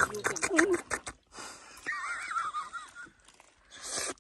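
Wet slurping and clicking mouth sounds of someone eating raw river shellfish straight from the shell, with a short wavering vocal sound in the first second. About two seconds in comes a high, wavering whistle-like call lasting about a second.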